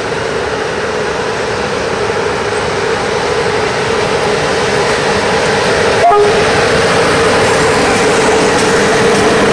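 CFR Class 477 electric locomotive rolling slowly past hauling passenger coaches: a steady hum over rolling noise, growing louder as it draws level. A brief short tone sounds about six seconds in.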